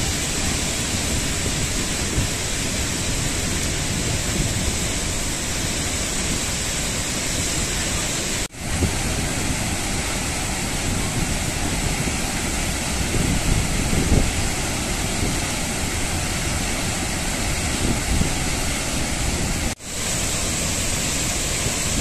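Athirappalli Falls, a large waterfall, rushing steadily as it pours into its plunge pool, with low surges now and then. The sound cuts out for a moment twice, about a third of the way in and near the end.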